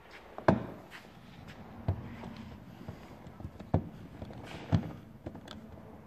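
Plastic trim-removal tool and fingers working at a stubborn retaining clip on a car's plastic trim piece: a few sharp plastic clicks and knocks, the first and loudest about half a second in, with faint scraping and ticking between them.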